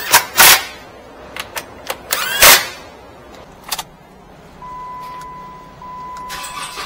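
Several loud knocks and clicks, then a steady high electronic beep that starts about two-thirds of the way in and holds on, over the low hum of a Jeep Wrangler's idling engine.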